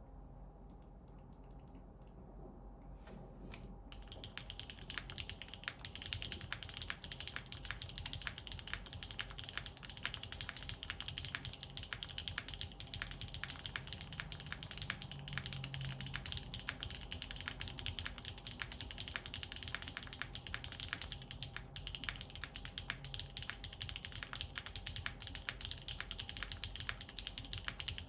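Typing on a Krush65 custom mechanical keyboard with an aluminium plate and GMK keycaps: after a few scattered key clicks, steady fast typing begins about four seconds in, with many keystrokes a second.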